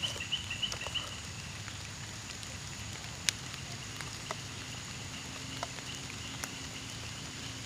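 Vinegar pouring from a glass bottle into a bucket of salt water, a faint steady trickle and splash.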